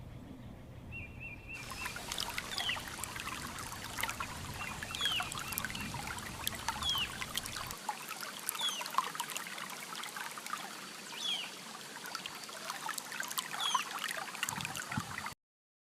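River water trickling steadily, with a bird repeating a short down-slurred call about every two seconds. The sound cuts off abruptly near the end.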